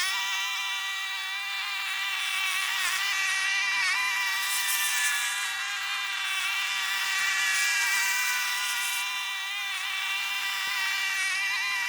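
7-horsepower long-grass mower engine running at a steady speed, a constant whine with no pauses.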